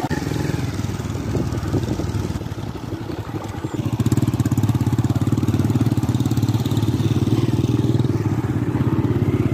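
Small motorcycle engine running under way on a dirt track, with a fast, even beat. It grows louder and steadier about four seconds in.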